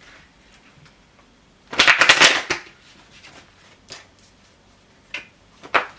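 A deck of tarot cards being shuffled: one quick, loud run of card flutter about two seconds in, then a couple of light single card clicks near the end.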